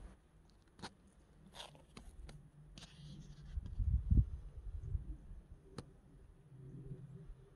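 Faint handling noise on a hand-held camera: scattered small clicks and rustles, with a low rumble swelling about four seconds in.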